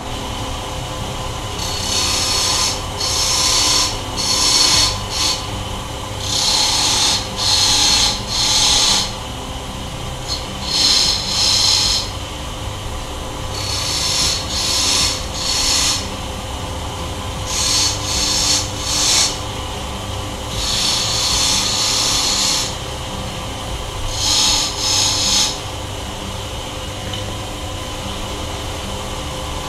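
Wood lathe running with a steady hum while a turning chisel cuts into the spinning wood in short passes. Each pass is a hissing scrape, mostly under a second, coming in twos and threes, with one longer cut of about two seconds past the middle.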